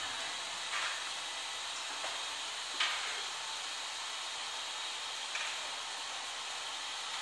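Pet grooming blow dryers running with a steady hiss, broken by three brief clicks.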